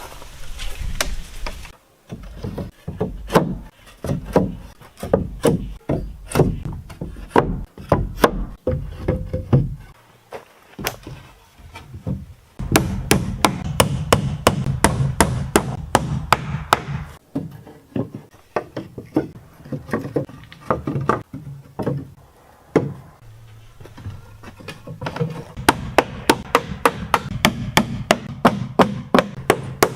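Hand-tool blows on wood, irregular and spaced out for most of the time, then a fast, even run of hammer strikes, about four a second, near the end.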